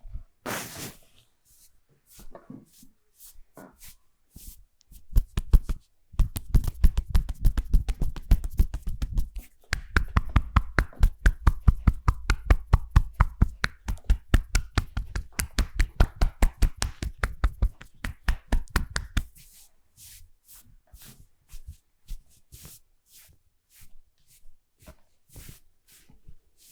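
Massage hands striking the body in fast, even percussion strokes (chopping and tapping), about five a second. The strokes run in two long bouts through the middle with a short break between them. Scattered lighter taps and rubs come before and after.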